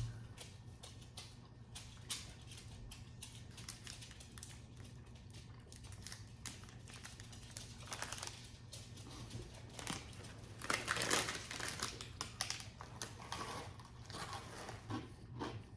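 Snack wrappers crinkling and rustling in short crackly bursts, loudest in a cluster about eleven seconds in, over a faint steady hum.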